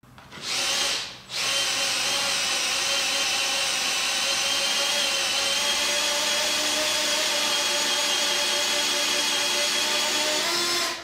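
Power drill spinning a hex (Allen) bit to run in the mounting bolts of a boring and facing attachment: a short burst, a brief pause about a second in, then a steady run of about nine seconds whose pitch rises slightly just before it stops.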